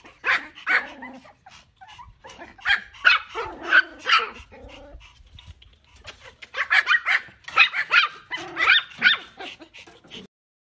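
A white Pomeranian puppy yapping: short, sharp barks in three bunches, a couple at the start, a run of about five a little later, and the busiest run about two-thirds of the way through.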